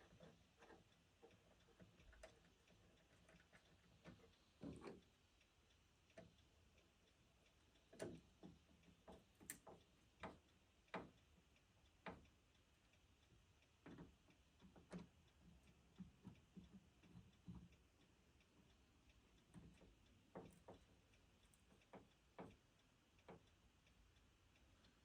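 Near silence broken by faint, irregular clicks and light knocks.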